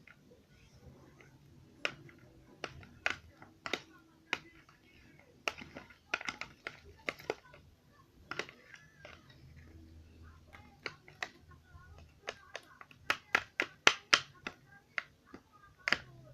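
Homemade glue-and-liquid-soap slime being stirred and kneaded, giving irregular wet sticky clicks and pops that come faster and louder near the end as the slime firms up.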